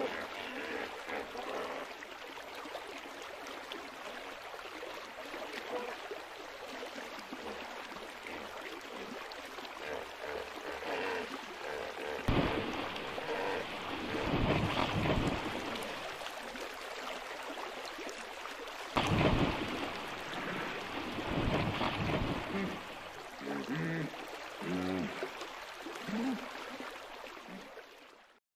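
Hippos splashing through river water: a steady rush of water with two loud surges of churning splashes, about twelve and nineteen seconds in. A few short low sounds follow near the end before the sound fades out.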